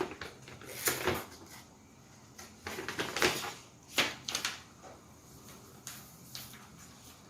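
A smartwatch's retail box being handled: scattered taps, scrapes and rustles of the packaging, the sharpest about one, three and four seconds in.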